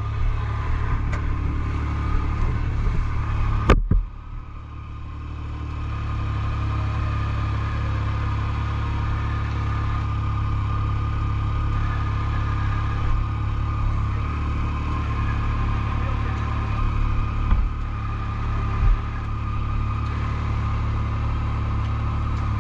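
ATV engine idling steadily. A sharp click about four seconds in, after which the engine sound drops lower and comes back up over a couple of seconds.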